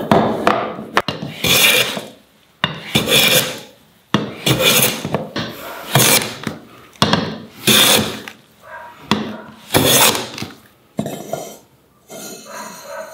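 Metal bench plane shaving a beech block: about ten long hissing strokes, roughly one a second, each the blade cutting a full-length shaving. The strokes stop about 11 seconds in, leaving only faint handling sounds.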